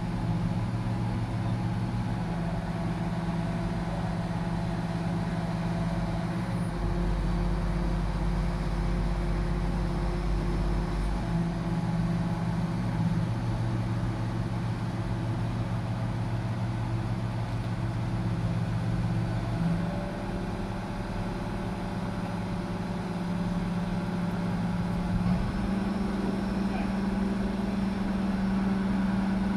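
Diesel engine of a 150-tonne Grove mobile crane running steadily during a lift, its speed shifting up and down in steps several times as the load is set down.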